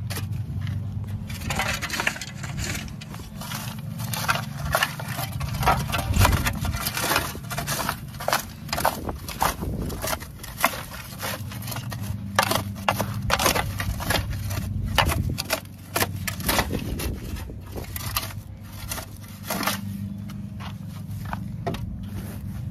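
Shovel scraping and scooping on the ground: many short, irregular scrapes and knocks, busiest in the first half, over a steady low hum.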